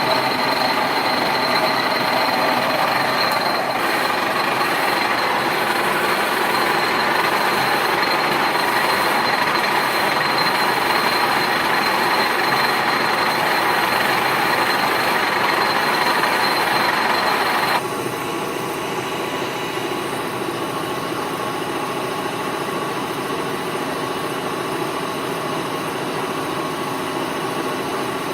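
1K62 screw-cutting lathe's headstock running on its first spin after a spindle bearing replacement: a steady mechanical gear noise with a thin high whine on top. About two-thirds of the way through it turns quieter and the high whine stops, while the lathe keeps running.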